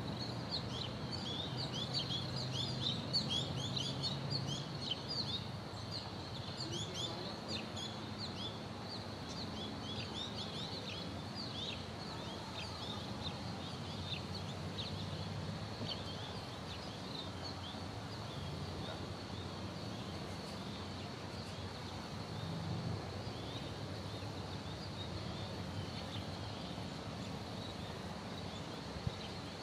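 Small birds chirping in quick, busy runs of short calls for the first dozen seconds, then only now and then, over a steady high-pitched drone and a faint low background hum.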